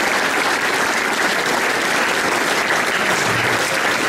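Audience applauding, a dense steady clapping that neither builds nor fades.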